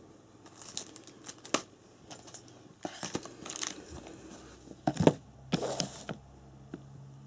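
Plastic parts packaging crinkling and rustling as it is handled, in irregular bursts with a few sharp clicks, loudest about five seconds in.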